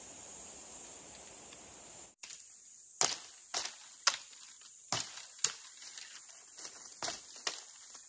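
A steady hiss, then after a sudden break about two seconds in, a run of sharp, irregular knocks, roughly two a second.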